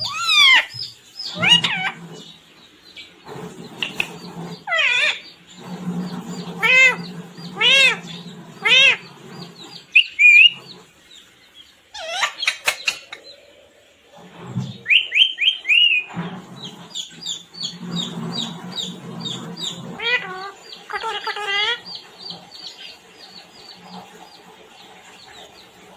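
Pet parrot calling: a long string of shrill squawks and chirps, many sliding up or down in pitch, with a run of quick repeated chirps in the middle.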